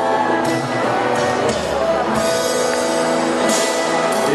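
Background music with instruments, guitar and drums among them, playing at a steady level.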